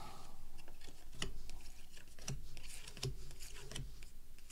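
Baseball cards being flipped through by hand: soft sliding of card stock with irregular light clicks as each card is pulled off the stack.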